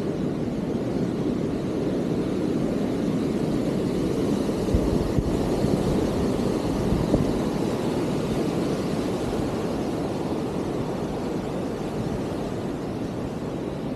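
Steady rumbling wind noise on a chest-mounted action camera's microphone while riding a mountain bike, with a few faint knocks about five and seven seconds in.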